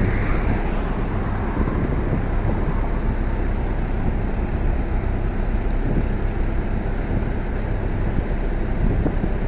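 Steady engine and machinery rumble of a road-marking truck running as it lays hot paint.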